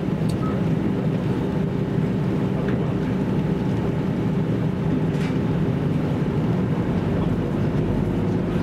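Steady drone of a JR Central KiHa 75 diesel railcar heard from inside the passenger cabin, its engine hum running evenly with a few faint clicks.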